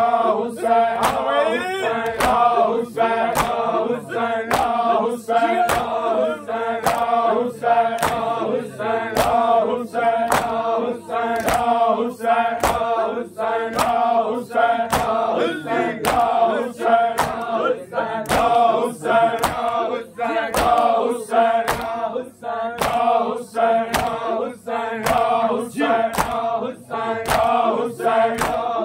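A group of men chanting a noha together, with a steady rhythm of sharp chest-beating (matam) strikes keeping time under the voices.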